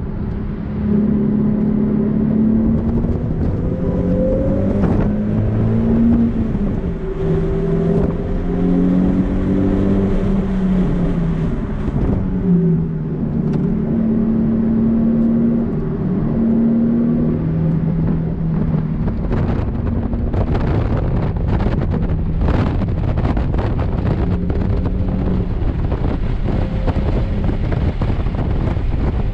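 Nissan 370Z's 3.7-litre V6 running hard on a race track, its pitch climbing and dropping as it revs through the gears, mixed with wind and road noise.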